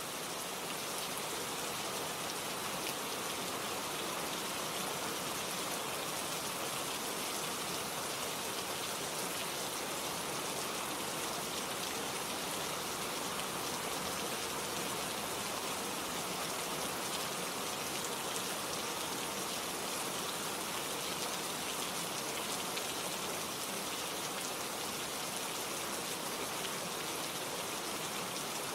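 Steady rain falling: an even hiss of dense drops pattering on a surface.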